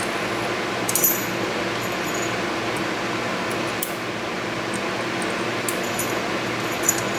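Small metal lock parts, the pins and plug of a disassembled dimple lock, clinking a few times as they are handled and set down on a hard surface, the sharpest clinks about a second in and near the end, over a steady background hum.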